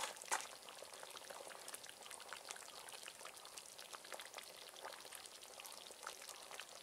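Raw jackfruit and prawn curry simmering in the pan, nearly done: faint, steady bubbling and sizzling with many small irregular pops and crackles.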